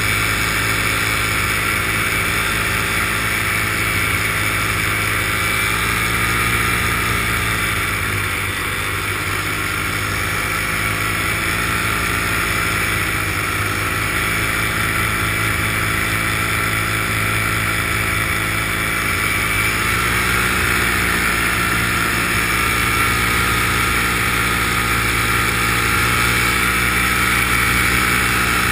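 Small aircraft engine and propeller running steadily in flight, heard from on board with wind rushing over the microphone. The engine note sags a little about a third of the way in, then changes again about two-thirds of the way through.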